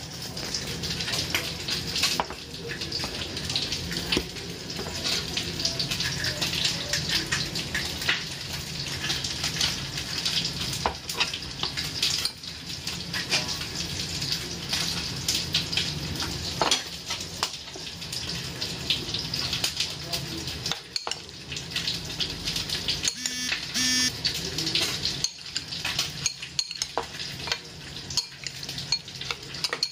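Metal spoon clinking and scraping against a ceramic bowl as raw chicken is seasoned and mixed, over a steady hiss and low hum of kitchen background noise.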